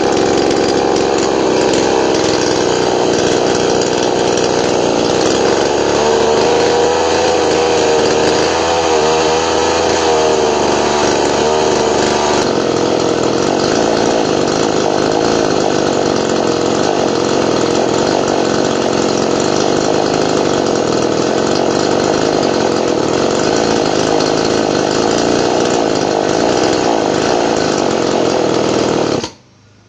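Small 28cc two-stroke grass-cutter engine running unmounted on its first test run, before being fitted to an RC plane. Its speed wavers up and down for a few seconds from about seven seconds in, and its tone changes a little later. The sound cuts off suddenly about a second before the end.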